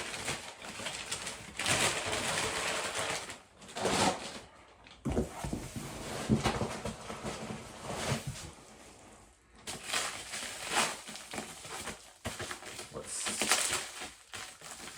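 Paper packing material rustling and crinkling in irregular bursts as a wrapped wooden item is unpacked from a shipping box.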